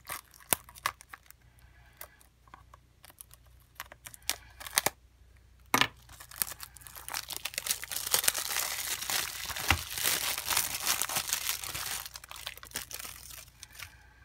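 Plastic shrink wrap being cut off a Blu-ray case with a knife. Scattered clicks and taps come first, with a sharp click a little before halfway. Then several seconds of continuous crinkling and tearing follow as the wrap is peeled away and crumpled, easing off near the end.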